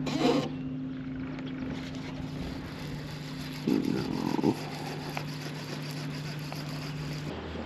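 Steady motor hum that drops to a lower pitch shortly before the end, with short loud noises just after the start and again around four seconds in.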